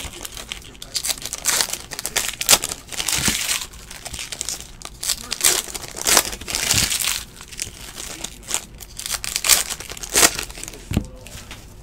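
Foil trading-card pack wrappers crinkling and rustling in the hands as packs are opened and the cards pulled out, in irregular bursts with sharp crackles.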